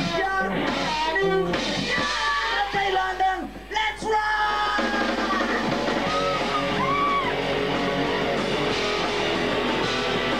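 Live rock band: a singer's yelled vocal over guitar, then a little under halfway through the full band comes in with loud, sustained electric guitar chords.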